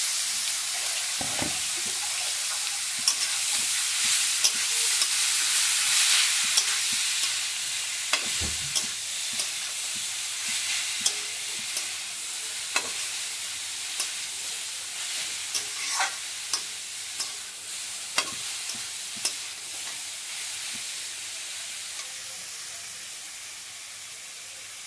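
Freshly added grated beetroot sizzling in hot oil in a steel kadai, loud at first and slowly dying down. A steel spatula scrapes and clicks against the pan as it is stirred.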